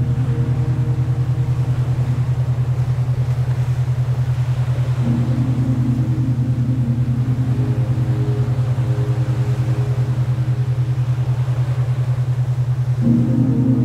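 Ambient electronic background music: a steady, fast-pulsing bass note under sustained synth chords that change about five seconds in and again near the end.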